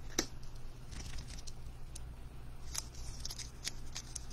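Trading cards being handled in the hands: a scatter of light clicks and rustles, the sharpest just after the start and a cluster near the end, over a steady low hum.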